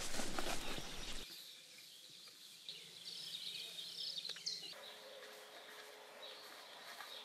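Footsteps through grass for about a second, then a sudden drop to faint countryside ambience with high, wavering bird chirps and one rising call before the middle.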